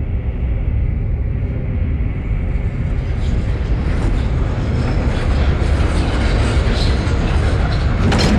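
A deep, steady rumble that swells with a rising hiss over the last few seconds and ends in a sharp hit just before the end, then fades away: a dramatic sound-design riser in the film's score.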